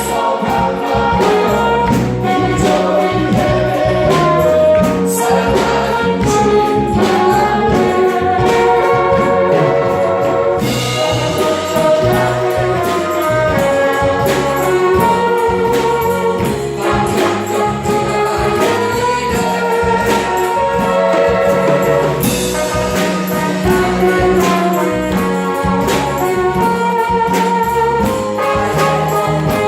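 Music with brass, a steady beat and what may be choir voices, in a gospel style.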